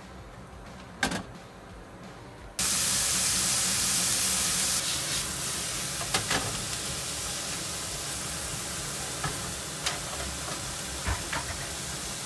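Chopped vegetables frying in oil in a frying pan. A loud sizzle starts suddenly about two and a half seconds in and settles to a steady frying hiss, with a few knocks of a wooden spatula against the pan as they are stirred. A single knock comes about a second in, before the sizzle.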